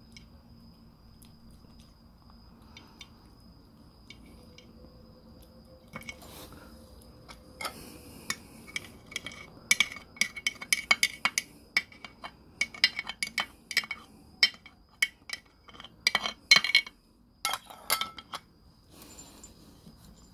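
A metal spoon clinks and scrapes against a ceramic dish. After a quiet start, a rapid, irregular run of sharp, ringing clinks begins about six seconds in and goes on until near the end.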